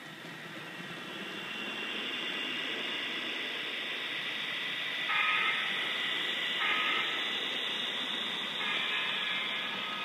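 HO scale model train running on the layout: the locomotive's motor hums and the wheels run over the rails, growing louder in the first two seconds as it passes close. Three brief high-pitched tones sound partway through, the last one the longest.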